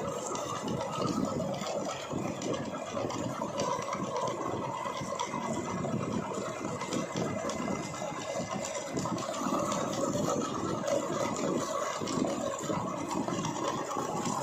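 Meat grinder driven by an electric motor, running steadily with a dense mechanical clatter and a faint steady whine.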